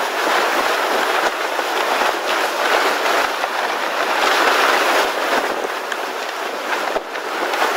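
Strong wind blowing over the microphone: a loud, steady rushing that swells and eases a little.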